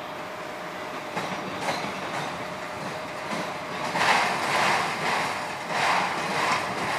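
BNSF freight train of autorack cars rolling past, with the wheels clicking over rail joints. The rolling gets louder in several surges in the second half.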